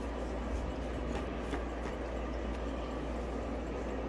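Steady low background hum with a faint hiss and a few soft ticks, no speech.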